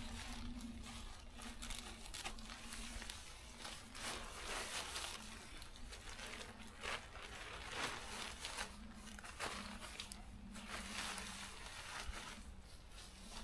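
Faint, irregular rustling and crinkling of tent fabric handled while a Lanshan 2 Pro tent is being pitched.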